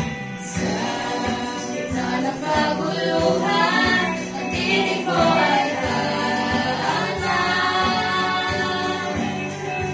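A small mixed group of young men and women singing a worship song together through microphones, over instrumental accompaniment with a steady beat.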